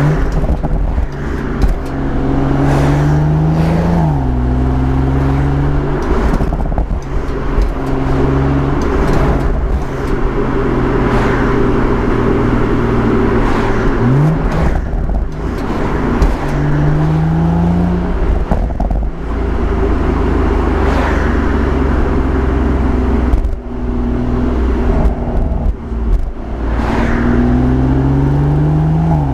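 BMW M140i's turbocharged 3.0-litre straight-six exhaust under acceleration. The engine note climbs in pitch over a few seconds, then drops sharply at each gear change, several times over.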